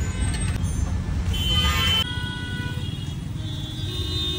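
Busy road traffic: a steady low rumble with vehicle horns sounding in long held tones.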